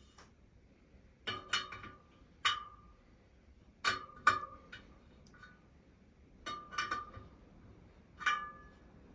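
Sharp metallic clinks, about eight in small clusters, each with a brief ring: metal tools knocking against the spokes and rim of a spoked motorcycle wheel while it is being worked on.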